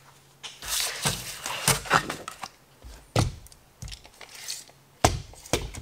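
Tape measure and marker being handled over a sheet of template board on a workbench: irregular scraping and rustling, then sharp knocks about three seconds in and again about five seconds in.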